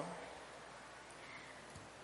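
Faint room tone with a steady low hiss during a pause in the reading, the reader's last word dying away at the very start.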